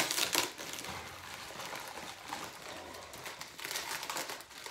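Clear plastic bag crinkling and rustling as it is pulled up off a tall platform boot, louder at the start and again near the end.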